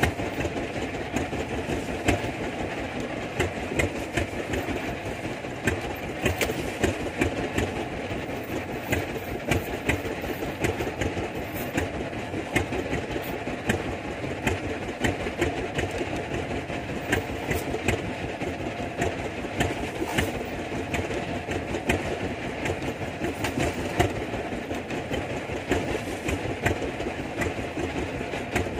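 Small fishing boat's engine running steadily with a rapid, even knocking beat.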